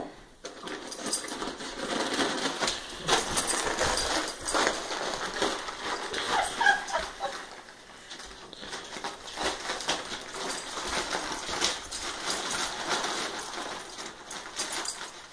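Wrapping paper crinkling and tearing as a beagle rips open a wrapped gift, a steady run of crackles and rips with short pauses.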